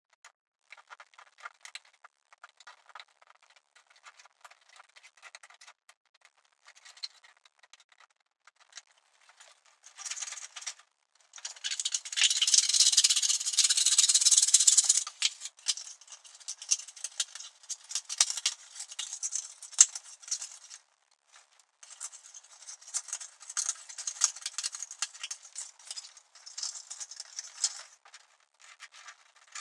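Scissors snipping through thin 3D-printed plastic strings, a crisp crackle of small clicks and rustling strands. The cutting is sparse at first and grows dense and loudest partway through.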